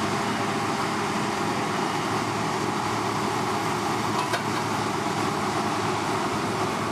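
Claas Lexion 460 combine harvester running steadily while unloading grain through its auger spout into a trailer, a constant mechanical drone. A single short click about four and a half seconds in.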